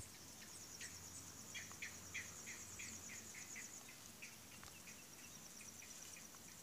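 Faint outdoor ambience: a high, steady insect trill with a run of short chirps, about three a second, in the first half, thinning out to scattered chirps afterwards.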